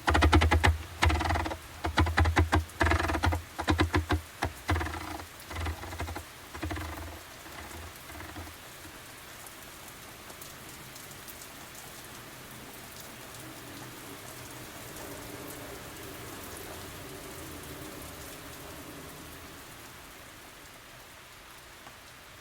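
180-grit sandpaper on a magnetic sanding pad rubbing against the inside of a mahogany guitar back, in quick rasping strokes that rumble through the hollow body for about eight seconds. Then a fainter steady hiss.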